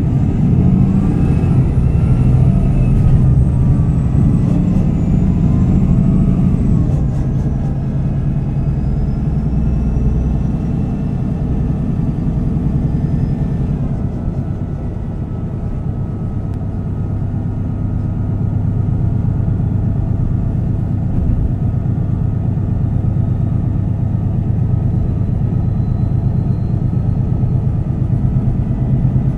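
MAN NG 313 articulated city bus under way, heard from inside: a steady diesel rumble with whining driveline tones that rise and glide while it accelerates over the first several seconds. About 14 s in the whine drops away and the bus runs on steadily.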